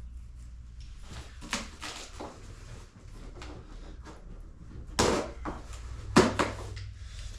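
A shipping box being opened by hand, its tape cut with keys: scattered scrapes and rustles of packaging, with two louder knocks about five and six seconds in.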